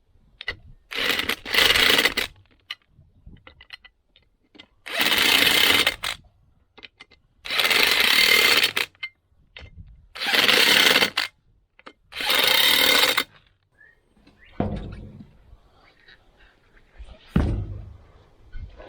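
Impact wrench running down the wheel-rim bolts in five loud bursts of about a second each, with a couple of dull clunks near the end.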